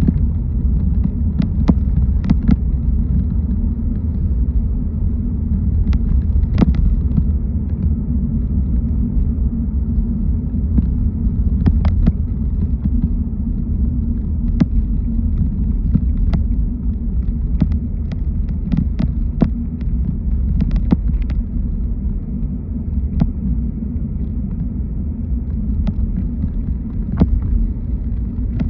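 Car driving: a steady low rumble of engine and tyres, with scattered sharp ticks now and then.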